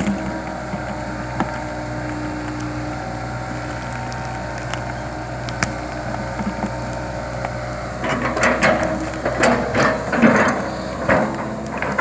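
Komatsu PC200LC tracked excavator's diesel engine running steadily under load. From about eight seconds in comes a run of loud, irregular cracks and crunches as the stump's wood and roots break.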